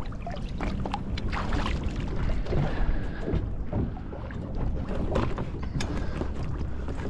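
Small boat rocking at sea, water lapping against the hull, with wind rumbling on the microphone and scattered light knocks and clicks of fishing gear being handled.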